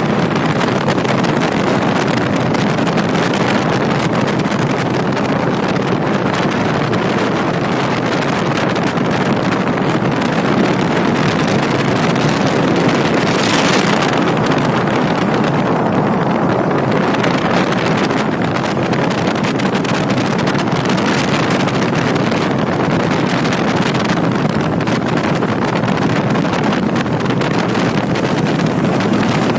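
Paramotor engine and propeller running steadily, with wind buffeting the microphone.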